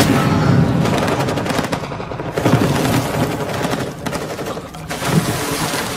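Battle gunfire: rapid, overlapping automatic rifle fire, with a loud blast at the very start and further heavy reports about two and a half and five seconds in.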